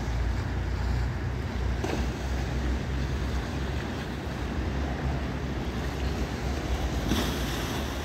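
Sea waves surging against a breakwater of concrete blocks, with wind buffeting the microphone in a steady low rumble. A wave breaks and splashes against the blocks about seven seconds in.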